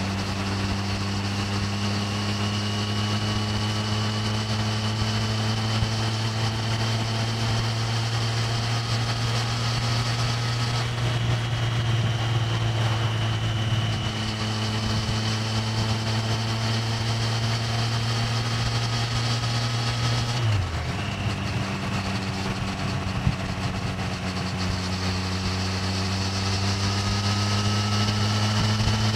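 Stock 2024 Triumph Street Triple 765R's inline-three engine and exhaust running steadily at cruising speed, with wind noise on the microphone. The note dips briefly about two-thirds of the way through, then rises a little near the end.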